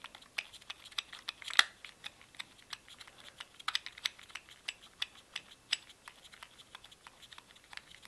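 Small irregular clicks and ticks of the CO2 tightening wheel in the grip of a Beretta Px4 Storm CO2 pistol, turned by hand to seat the CO2 cartridge. One louder click comes about one and a half seconds in.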